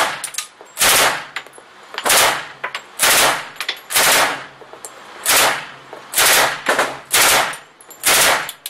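Automatic gunfire in short bursts from an indoor shooting range lane, about ten bursts at roughly one a second, each echoing off the range walls.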